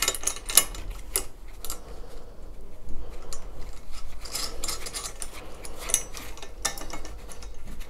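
Scattered light metal clicks and scrapes as a bolt and nut are fitted through the two-part clamp clips that hold a chainwheel to a valve gearbox handwheel.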